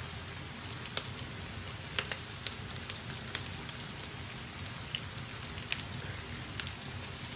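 Marker pen drawing lines on paper, with the hand handling the sheet: scattered small clicks and scratches over a steady background hiss.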